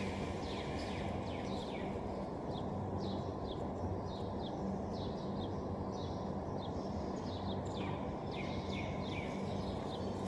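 Small birds chirping in many short, falling notes, over a steady low hum.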